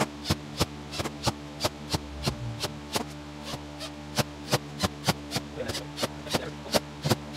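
Background music: a steady click beat, about three a second, over held tones.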